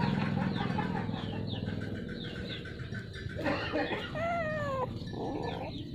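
Chickens clucking, with repeated short high peeps, and a drawn-out whining cry that falls in pitch about three and a half seconds in, followed by a couple of shorter cries near the end.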